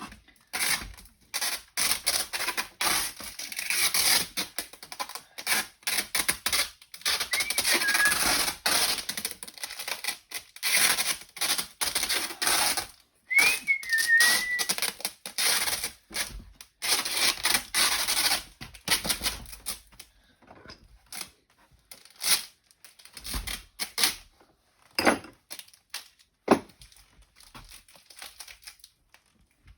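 Adhesive tape being pulled off the roll and wrapped around a laptop to hold the lid shut: long, irregular rasping pulls with two brief high squeaks. In the last third the pulls thin out to scattered clicks and knocks of handling.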